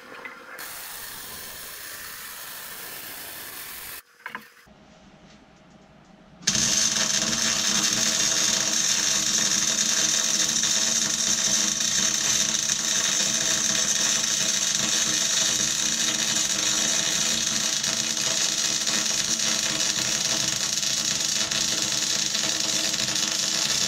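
A power tool starts about six and a half seconds in and runs steadily and loudly, an even machine whine with hiss. Before it there is a quieter steady hiss, then a short near-quiet gap.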